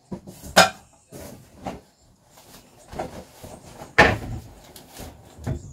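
A string of knocks and bumps from household things being handled and put away while packing, with two sharp bangs, about half a second in and about four seconds in.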